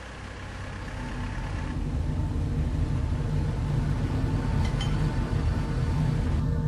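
Dark ambient background music: a low rumbling drone with held tones, swelling in loudness over the first few seconds.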